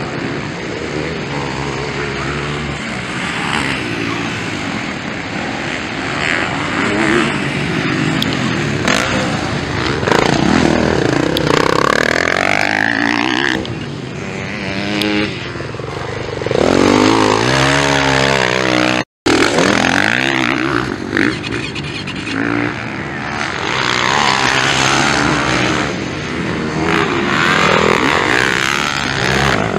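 Motocross dirt bike engines revving up and down again and again as the bikes race, jump and corner on the track. The sound cuts out for an instant a little past the middle.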